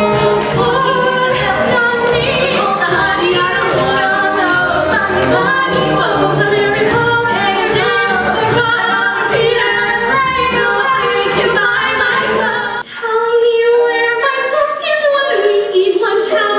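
Two women singing a musical-theatre number over an accompaniment. About thirteen seconds in, it cuts abruptly to another sung passage.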